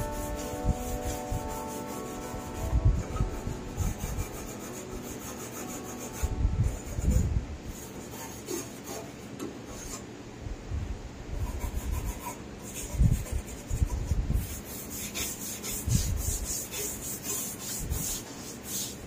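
Stiff hand brush scrubbing the rusty sheet-metal cowl of a car body, in irregular rasping strokes with occasional dull knocks.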